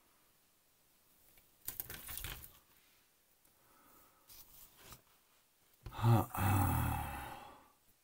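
Plastic model-kit sprue frame rattling and scraping over paper as it is handled, in a few bursts with some small clicks, the loudest and longest starting about six seconds in and fading out.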